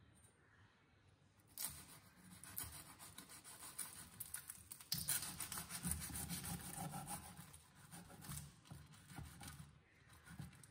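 Knife cutting through the crisp deep-fried crust of a meat-filled irachi pathiri on a wooden board: faint crackling crunches and scraping, busiest in the middle.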